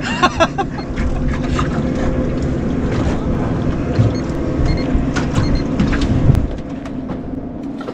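A small boat's motor running steadily, with wind buffeting the microphone and a couple of knocks about four and six seconds in. The noise eases off about six and a half seconds in.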